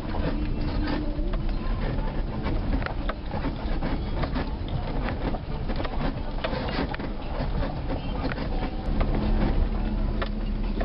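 Car driving over a bumpy dirt road, heard from inside the cabin: a steady low road and engine rumble with many small rattles and knocks as the tyres roll over the rough, stony surface.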